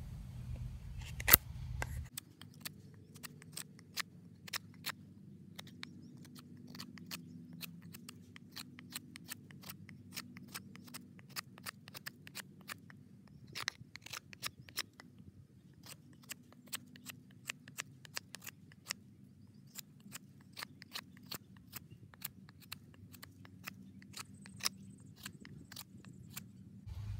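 Fixed-blade knife whittling a cedar stick: a run of short, sharp cuts and scrapes at an irregular pace as the blade shaves wood off.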